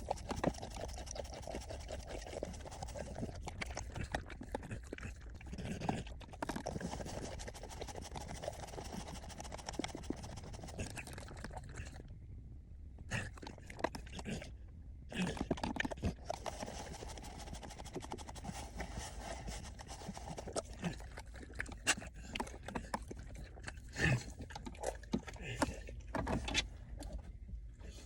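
Cane corso licking and lapping at a milkshake, with scraping, small clicks and panting.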